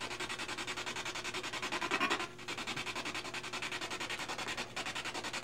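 Spirit box radio sweep: static chopping rapidly and evenly at about seven pulses a second, with a short louder patch about two seconds in.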